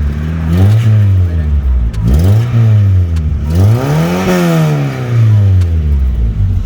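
Volkswagen Mk2's 1.8-litre four-cylinder engine being blipped through a newly fitted muffler: about three revs that rise and fall back, the highest and longest about four seconds in, before settling toward idle. The carburetor is running rich and smoking, by the owner's account.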